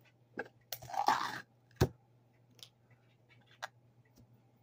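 A knife scraping in a jar of cinnamon spread and the jar's lid being handled and screwed on: a short scrape about a second in, a sharp click just before two seconds, then a few faint clicks.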